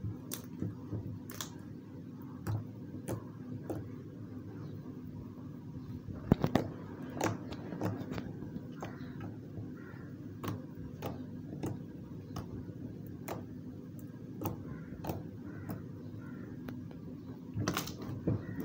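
Clear slime mixed with clay being squeezed and kneaded by hand, giving irregular small clicks and pops, with a louder cluster about six seconds in.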